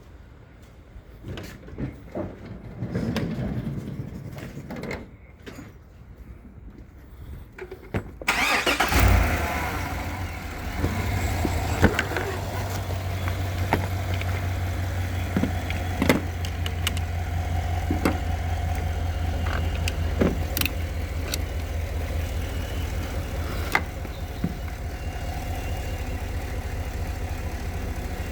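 A few faint knocks, then about eight seconds in the 2016 GMC Denali's V8 engine is cranked by the starter and catches, settling into a steady idle. It starts right after the battery service.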